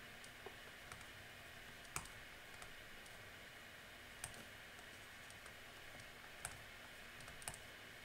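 A few faint, sharp taps of a pen stylus on a tablet screen as an equation is written, scattered over near-silent room tone, the loudest about two seconds in.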